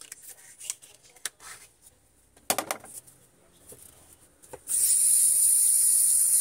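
Small handling sounds, light rubbing and clicks, with one louder rustle a little before the middle. About three-quarters of the way in, a loud, steady hiss starts and holds level.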